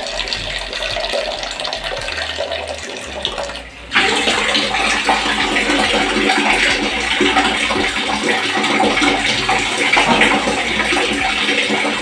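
Water from a tap fitted with a portable instant water geyser running into a plastic jug. After a brief break about four seconds in, a louder, steady rush of water.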